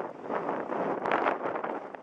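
Wind buffeting the camera microphone in uneven gusts.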